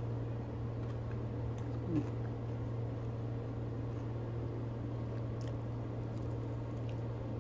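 Steady low room hum, with faint clicks of a metal fork against a plate and quiet eating as a meatball is taken on the fork and eaten. A short falling 'mm'-like voice sound comes about two seconds in.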